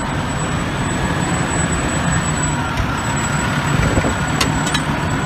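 Heavy road vehicle running in street traffic: a steady low engine drone over traffic noise, with a couple of faint clicks about four and a half seconds in.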